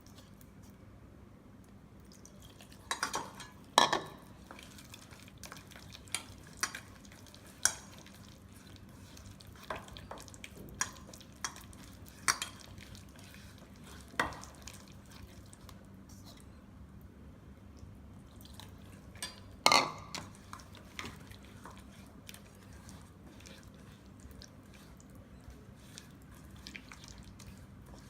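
Spoon stirring a thick masala paste in a bowl, with scattered sharp clinks of the spoon against the bowl, the loudest about four seconds in and again near twenty seconds in.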